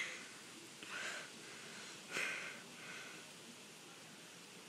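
Three faint breathy inhalations a little over a second apart, the second the loudest: a boy's breaths drawing in as a sneeze builds.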